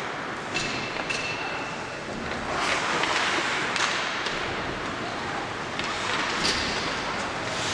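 Ice hockey play in an indoor rink: a steady wash of skates on ice and arena noise, with several sharp clacks of sticks and puck spread through it.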